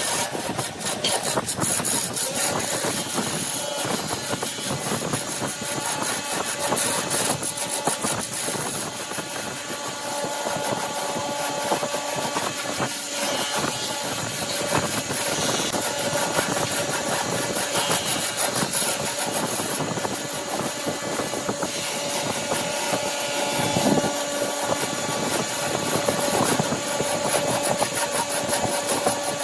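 Wood lathe running while a turning tool scrapes and cuts the spinning wood, a steady dense scraping with a faint motor whine beneath it.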